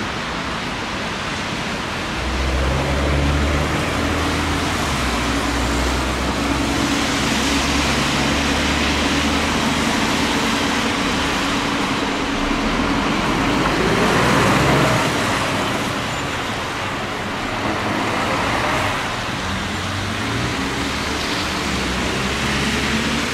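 Road traffic: a large engine runs nearby under a steady hiss, and a vehicle passes with a rising sound, loudest about fourteen seconds in.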